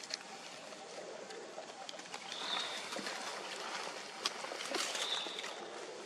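Outdoor ambience: a steady faint hiss with scattered small clicks, and two brief high chirps about two and a half seconds apart.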